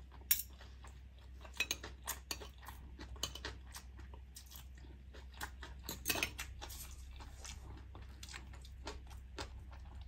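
Metal spoon and fork clinking and scraping on a ceramic plate of rice, as a string of small, sharp clicks. The loudest clicks come just after the start and about six seconds in.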